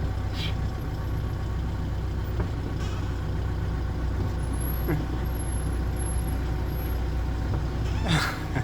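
A motor vehicle engine running steadily with a low hum. A brief, louder sound falling in pitch comes near the end.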